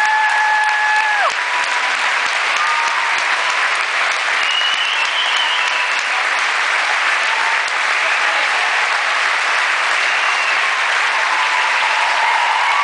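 Large theatre audience applauding, a dense, steady clapping that never lets up. A long, high, held whistle rises above it and cuts off about a second in, and shorter high whistles come through around the middle.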